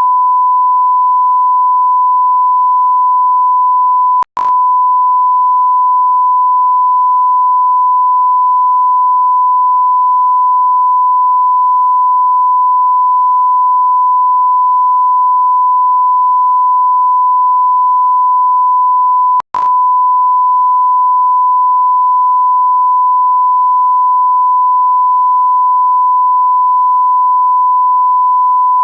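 Continuous pure electronic beep tone at one steady pitch, the kind used as a censor bleep or test tone. It cuts out for an instant twice, with a click, about four seconds in and again about fifteen seconds later.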